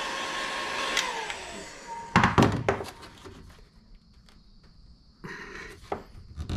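Milwaukee electric heat gun blowing, then switched off about a second in, its fan whine falling in pitch as it winds down. A few sharp knocks follow as it is set down on the workbench, then softer rubbing and handling of the heated PVC strip.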